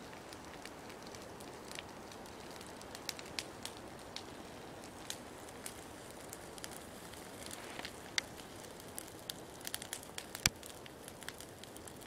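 Wood campfire crackling: irregular sharp pops over a steady hiss, the loudest pop about ten seconds in.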